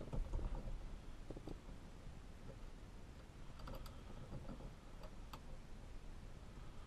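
Faint, scattered clicks and light handling noise of small metal parts: Allen screws and a hex key being worked at a steering hub, with a couple of sharper ticks past the middle.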